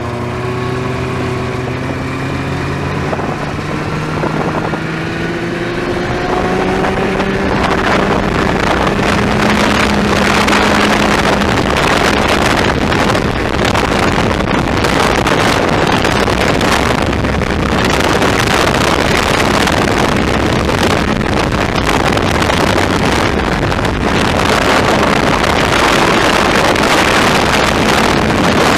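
Arctic Cat Jag longtrack snowmobile's two-stroke engine pulling away, its pitch rising over the first several seconds, then running steadily at speed under heavy wind noise on the microphone.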